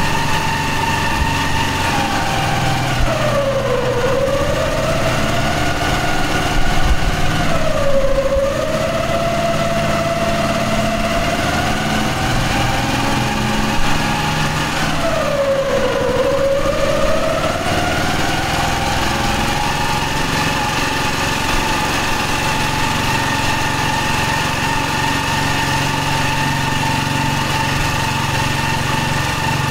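A vehicle engine running steadily, its whine dropping in pitch and climbing back three times in the first two-thirds, then holding level.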